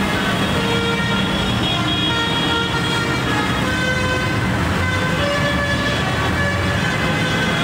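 Big farm tractors' diesel engines running close by, with many vehicle horns sounding at different pitches on and off over the top.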